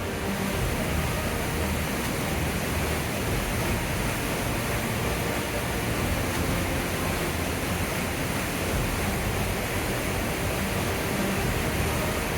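The Merced River rushing in spring flow, a steady even wash of white water.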